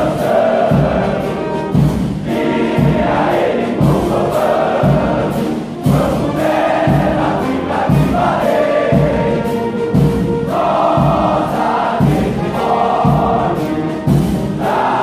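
A large male choir of soldiers singing a military battalion hymn in unison, over a steady drum beat of about two beats a second.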